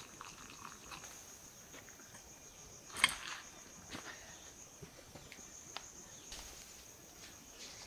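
Insects chirring in a steady high-pitched chorus, with scattered small clicks and one sharp crack about three seconds in.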